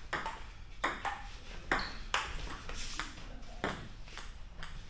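Table tennis rally: the ball clicking off the paddles and the table, about ten sharp taps at uneven spacing, roughly two a second.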